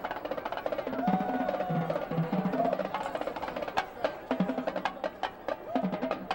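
Marching band drumline playing a percussion feature: snare drums, multi-tenor drums and pitched bass drums in a tight rhythm. The sharp snare hits come thicker in the second half.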